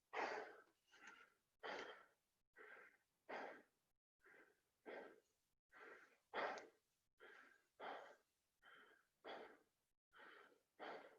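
A person breathing hard and fast, out of breath just after finishing 100 burpees. The breaths are faint, quick and regular, about three every two seconds.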